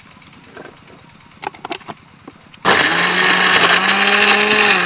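Electric countertop blender switched on about halfway through, its motor starting suddenly and running with a loud steady hum as it churns watermelon chunks and ice in a glass jar. A few light clicks just before, as the lid is fitted.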